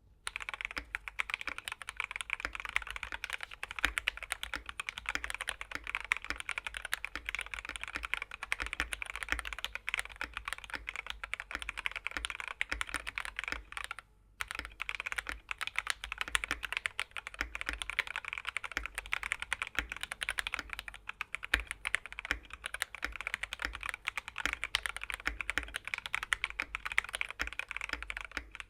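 Keychron K6 Pro mechanical keyboard with Keychron K Pro Red linear switches being typed on continuously and quickly, many keystrokes a second, with a brief pause about fourteen seconds in.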